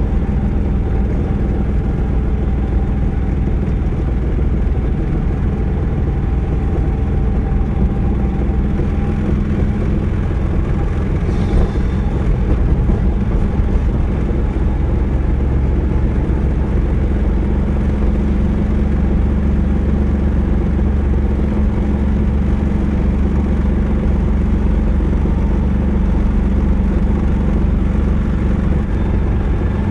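Car engine and tyre noise heard from inside the cabin, a steady hum at cruising speed along a winding road.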